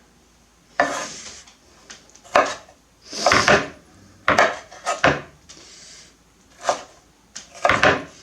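Kitchen knife chopping soft roasted red peppers on a cutting board: about seven irregular knocks of the blade against the board, spread a second or so apart.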